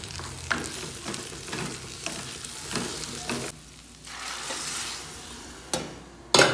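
Spoon stirring chicken and rice as they fry in a pot, scraping against the bottom over a steady sizzle, with one loud knock near the end.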